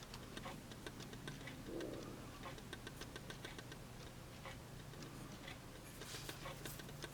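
Faint, irregular small clicks and taps from a handmade knife being handled, over a low steady hum.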